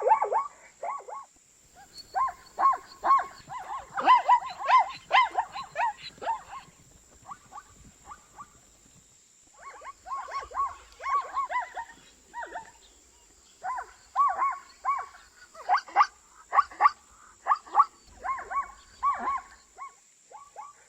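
Zebra calling: bouts of quick, repeated yelping barks, several a second, with short pauses between the bouts.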